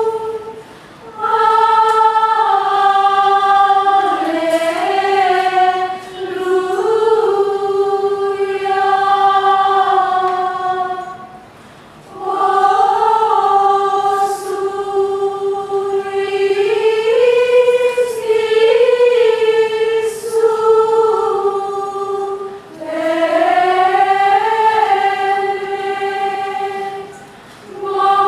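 Women's choir singing Gregorian chant in unison, one melodic line moving in slow phrases, with short breaks for breath between phrases.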